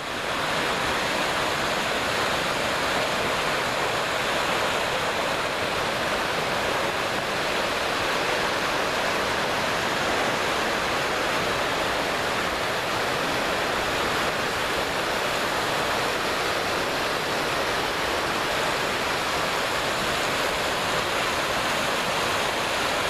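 Mountain creek rushing steadily over boulders and small cascades: a dense, even wash of white-water noise that comes in abruptly at the start.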